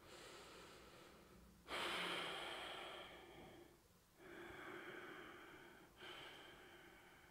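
A woman breathing slowly and deeply in yoga breathing: a louder airy breath starting about two seconds in that fades away, then two fainter breaths.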